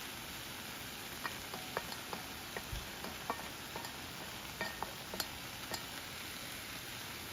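Food sizzling in a hot pan: a steady hiss with irregular crackling pops.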